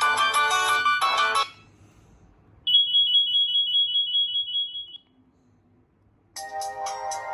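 Nokia 7230 ringtones playing one after another: a melody ends about a second and a half in, then a single high tone is held for about two seconds, and after a short pause a new melody starts near the end.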